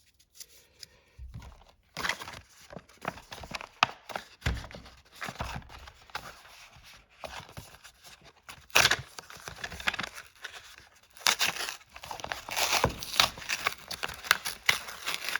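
Foil Pokémon booster pack wrapper crinkling and being torn open, in irregular crackling rustles with denser bursts about two seconds in, about nine seconds in and again near the end.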